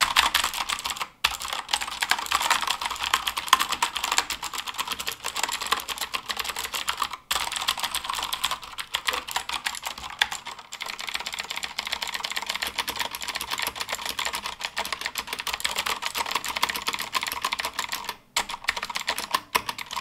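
Mechanical keyboard with clicky Cherry MX Blue switches typed on fast and hard: a dense, continuous clatter of keystrokes, broken only by a few brief pauses.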